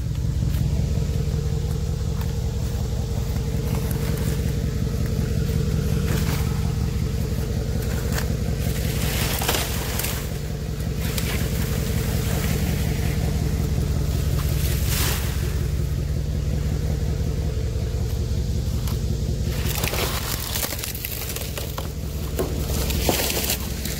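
Pickup truck engine idling with a steady low hum, while dry palm fronds and debris are handled, giving occasional rustles, scrapes and knocks.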